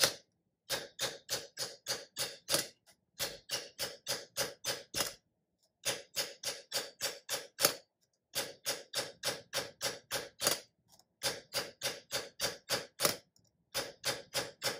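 Nylon mallet tapping a copper disc on a steel mushroom stake: quick even blows about five a second, in runs of two to three seconds with short pauses as the piece is turned. The blows smooth and clean up the edge of the sunk dish without stretching it.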